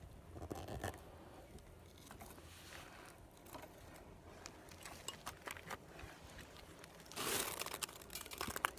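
Handling noise: scattered light clicks and rustles, with a louder rustle lasting about a second near the end.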